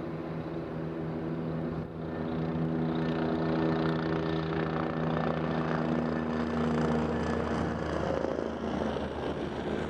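Boeing 787-9 jet engines running at taxi power: a steady hum with several droning tones, which fade a little near the end as a deeper rumble comes up.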